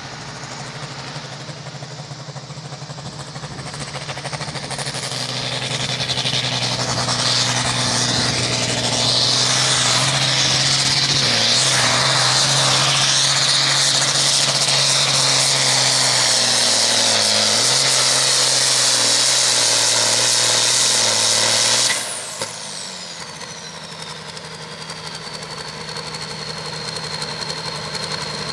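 International Harvester 1066 Turbo tractor's turbocharged six-cylinder diesel pulling a weight sled at full throttle. It climbs over the first few seconds, holds loud and steady for about fifteen seconds with its pitch sagging slightly under load, then is cut off suddenly about 22 seconds in. It drops to idle while the turbo's whine falls away and settles into a steady high whistle.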